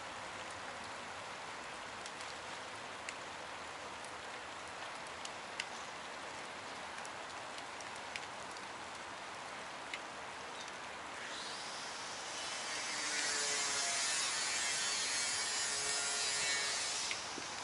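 Freight train cars rolling past on the rails: a steady hiss of wheels on track with a few faint clicks. About twelve seconds in it grows louder and harsher, with faint squealing tones from the wheels.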